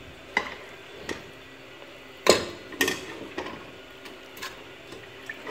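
A stainless-steel cooking pot and utensils clacking and knocking: about half a dozen short, sharp knocks spread out, the loudest about two seconds in, as raw goat meat is added to the pot of fried spice paste.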